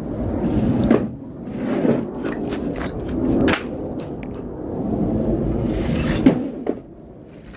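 A few sharp knocks and thuds, with a pair close together about six seconds in, over steady rumbling handling noise.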